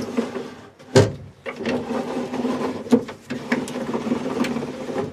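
A 1968 Mustang's quarter window glass being run along its track by the regulator, its new guide rollers and seal sliding in the channel with a steady mechanical rumble. There is a sharp click about a second in, where the movement stops briefly, and a few lighter clicks later.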